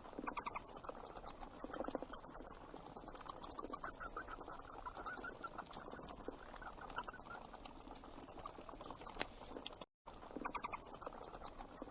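A small rodent squeaking in quick trains of very high-pitched chirps, in several bursts with short gaps between.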